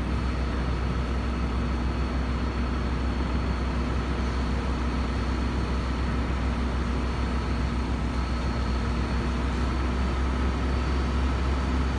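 Fire engine running steadily, its engine driving the pump for the hose line: a constant low drone with a steady hum over it that does not change.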